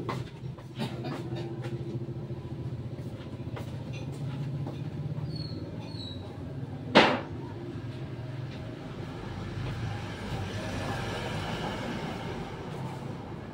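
A steady low rumble with scattered light clicks, and one sharp knock about seven seconds in.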